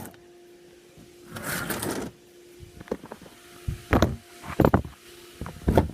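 A brief rustle, then several dull thumps and knocks, the loudest about four seconds in, over a faint steady hum.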